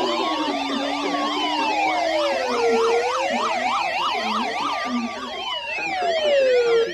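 Electronic sirens sounding together as an emergency alert tone: slow wails rising and falling about every four seconds layered with a fast yelp of about four cycles a second. It signals the start of a new emergency warning.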